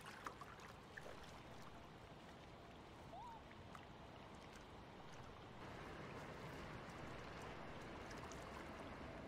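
Faint, steady water-like rush, the ambience of a hot-spring pool, with a few soft clicks and one short rising chirp about three seconds in; the rush grows a little louder about halfway through.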